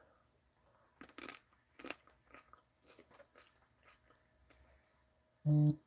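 A few faint clicks and crinkles of plastic card cases being handled. Near the end, a phone vibrates in one short, loud buzz as a notification arrives.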